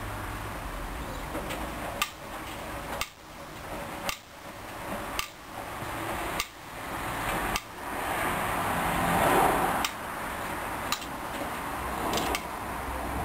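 Hoover Dyn10124Dp washing machine drum tumbling a load of jackets in a rinse, with sharp clanks every second or so as the load drops against the drum and a swell of sloshing water partway through.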